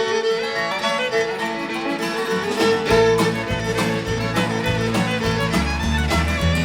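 Instrumental break of an upbeat country song, led by a fiddle. Bass and the rest of the band come in about three seconds in.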